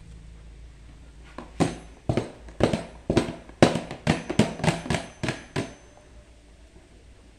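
Hard plastic clacks from a clear plastic storage box being handled and knocked about: about a dozen sharp, irregular knocks over roughly four seconds, starting about one and a half seconds in.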